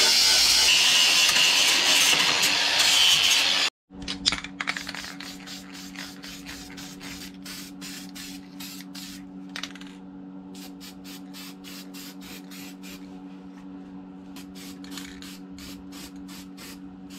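A Ryobi cordless angle grinder runs loudly against a metal frame for about four seconds and stops abruptly. Then aerosol spray cans of primer and black paint hiss in many short bursts, over a steady low hum.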